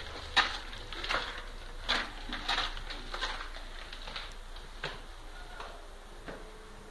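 Irregular scuffs and clicks of someone walking on a gritty stone floor while carrying a handheld camera, about one or two a second, thinning out in the second half.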